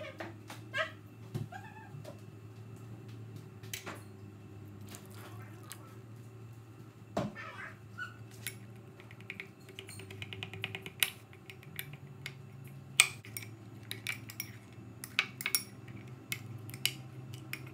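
Metal spoon stirring and clinking against a small ceramic bowl, mashing beef-stew seasoning cubes into a little hot water to dissolve them: a quick scraping run about ten seconds in, then scattered sharp clinks. A steady low hum underneath and a few short high calls early on.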